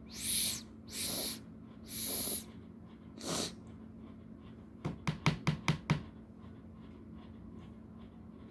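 A person sniffing hard through the nose: four long, breathy sniffs in the first few seconds, then a quick run of about six short, sharp sniffs in about a second, around the middle. The nose is being stimulated to build up toward a sneeze.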